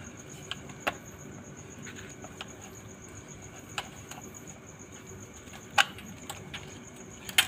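Soft copper air-conditioner tubing being wound by hand around a plastic pipe former into a coil: a few scattered sharp clicks and taps, the loudest about six seconds in and near the end. A steady high pulsing chirr goes on throughout.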